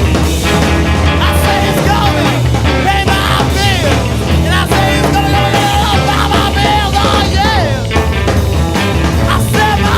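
Rock music, loud and continuous, with a melodic lead line over a full band.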